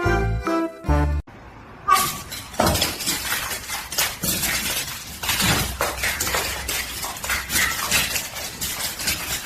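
A short bit of music that stops about a second in, then several seconds of dense clattering and clinking, many small hard objects knocking together.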